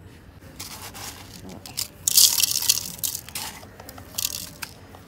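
Coarse salt being sprinkled by hand over turmeric-dusted ribbon-fish pieces in an aluminium pot, the grains hissing onto the fish and metal in several short bursts. The longest and loudest burst comes about two seconds in.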